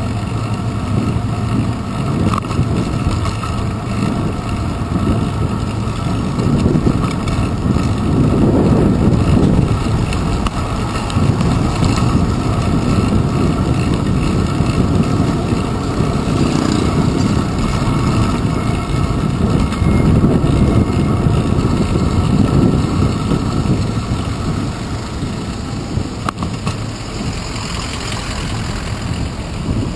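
Steady, low city street noise heard from a handlebar-mounted camera on a moving bicycle: road and traffic rumble from nearby cars and trucks, swelling and easing as the bike moves through traffic.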